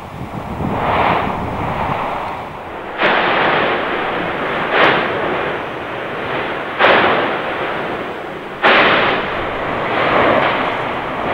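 Mount Etna in explosive eruption: four sudden blasts about two seconds apart, starting about three seconds in, as the vent throws out lava bombs. The blasts sit over the continuous rushing noise of the eruption.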